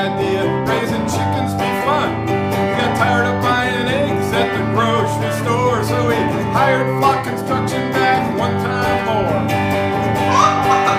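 Hollow-body electric guitar strummed in a country style, with a man singing a verse over it.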